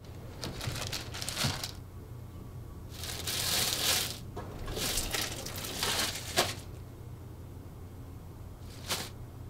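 Thin plastic bin liners rustling and crinkling in several bursts as they are handled and pulled out of the bin's liner pocket, with a short swish near the end, over a low steady hum.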